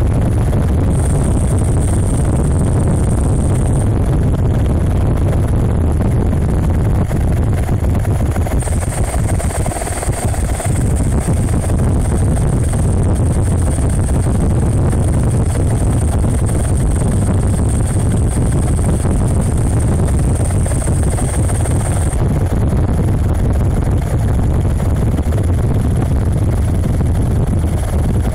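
Helicopter noise heard from on board: a steady low rumble of engine and rotor, with a thin high whine that comes and goes.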